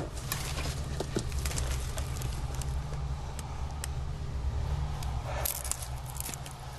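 A low steady rumble with scattered crackling and rustling over it, and a denser rustle about five and a half seconds in.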